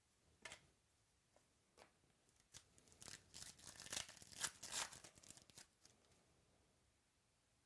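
Trading card pack wrapper being torn open: a few light clicks, then a faint crackly tearing run of a couple of seconds, loudest about four to five seconds in.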